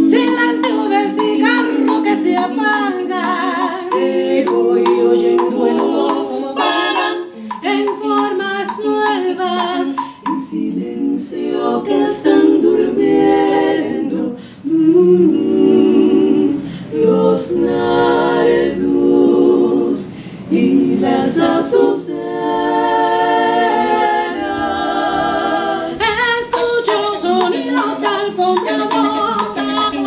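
Group of women singing a cappella in harmony, several voices together, with sharp wooden clicks of claves scattered through the song.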